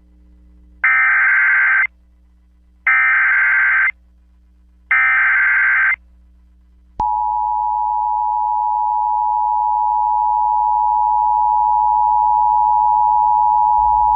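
Emergency Alert System header: three one-second bursts of digital data tones about a second apart. About seven seconds in, the steady two-tone attention signal begins and holds, heralding a National Weather Service flash flood warning.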